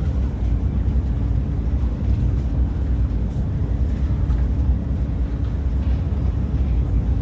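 Steady low rumble of the Whoosh high-speed train running at speed, heard inside the passenger car.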